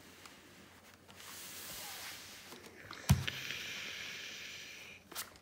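Steam iron working a folded cotton strip on a quilted ironing pad: a hiss, then a loud thump about three seconds in as the iron is stood up on its heel, followed by more hissing.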